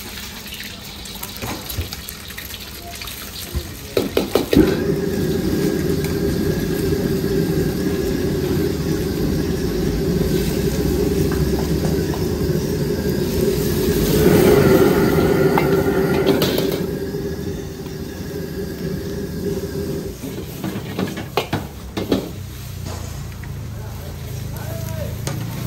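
Food frying in a hot wok over a gas burner: a loud steady sizzle starts suddenly a few seconds in, peaks around the middle and eases off near the end. A metal ladle knocks and scrapes against the wok before and after the sizzle.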